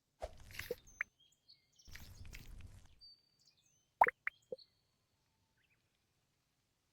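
Foam squishy toy being squeezed and handled: two short stretches of rustling noise, then a few sharp pops about four seconds in.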